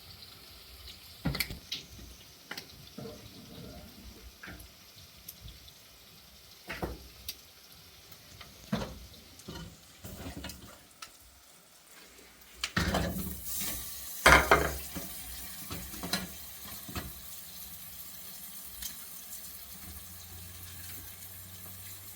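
Household clatter: scattered short knocks and clinks, loudest in a cluster about 13 to 15 seconds in, over a steady watery hiss that sets in about two-thirds of the way through.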